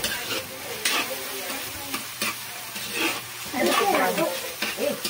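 Chopped chicken sizzling as it fries in a wok, with a few light knocks from stirring in the pan.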